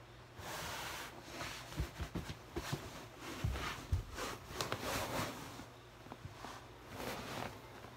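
Fabric rustling and rubbing against a large inflated balloon as it is handled and squeezed, with several dull low thumps in the first half.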